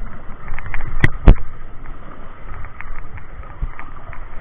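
Large spinning reel being wound in against a hooked fish: steady wind and water noise on the camera mic with irregular light ticks. Two sharp knocks come about a second in.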